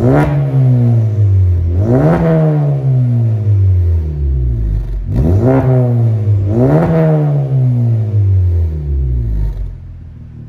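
Honda Civic Type R FK8's turbocharged 2.0-litre four-cylinder, breathing through a custom 3-inch exhaust with one middle silencer and a Miltek decat, revved in four quick throttle blips while standing still, each rising sharply and falling back. Near the end it settles back to idle.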